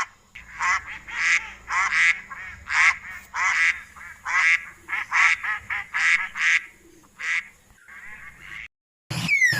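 Geese honking: a series of loud, repeated honks, one or two a second. After a short break near the end, a different animal call with a falling pitch begins.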